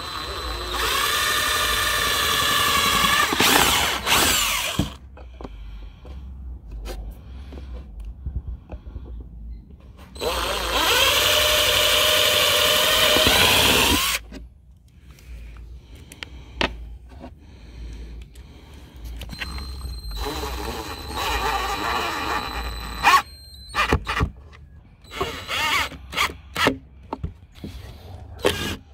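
Cordless impact driver driving screws through a steel angle bracket into plywood: two runs of about three to four seconds each with a steady motor whine, then a shorter, quieter run, followed by a few clicks and knocks near the end.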